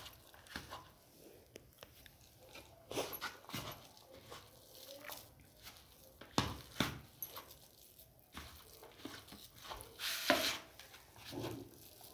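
A hand kneading a dry, crumbly pea-and-flour dough in a plastic bowl, with no water added: scattered soft squishes and knocks against the bowl, a second or more apart, the clearest about three, six and ten seconds in.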